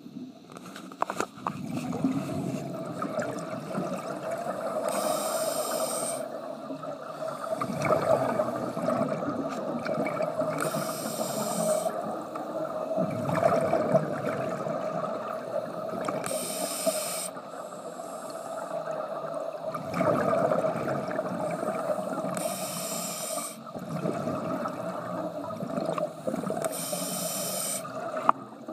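Scuba diver breathing on a regulator, heard underwater: a short hiss of inhalation five times, about every five to six seconds, each followed by rumbling exhaled bubbles, over a steady hum.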